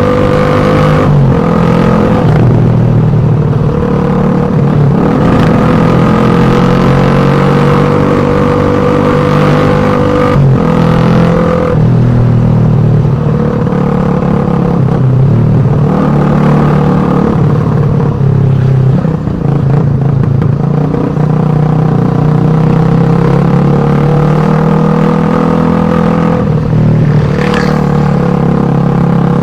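Exhaust note of a Suzuki Satria FU 150 motorcycle, a 150 cc single-cylinder four-stroke, running steadily, its pitch rising a little and falling back a few times as the throttle moves.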